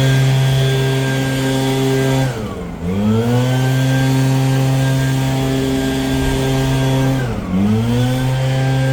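Petrol leaf blower engine running at high revs with a steady buzz. Its revs drop as the throttle is let off and climb straight back as it is squeezed again, about two seconds in and again near the end.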